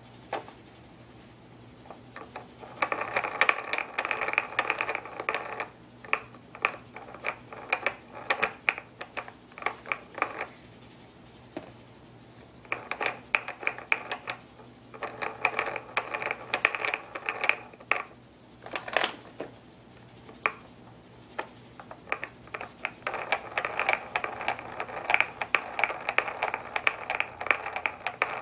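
Plastic spinning-ball toy on a baby walker's tray, clicking and rattling rapidly as a baby's hand spins it. It comes in several spells of a few seconds each, with short pauses between.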